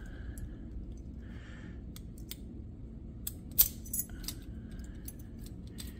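Key being turned in a small lock cylinder, with keys on the ring clinking: scattered light metallic clicks and ticks, the loudest a little past halfway.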